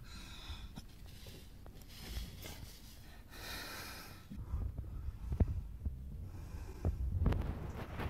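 Close handling noise as a hand and phone reach along a narrow gap: rustling of mineral wool insulation, scraping and low knocks against the wooden beam, with a person's breathing. The knocks come more often in the second half.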